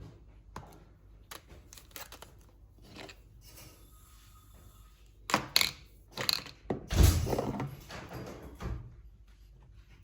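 Close handling noises: a few light clicks and taps, then about five seconds in a louder stretch of knocks with tearing and crinkling that dies down near the end.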